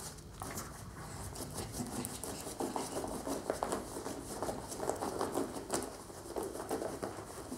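Norfolk terrier scuffling against a kneeling person's clothes, its paws pattering and shuffling on carpet: irregular soft rustles and small clicks.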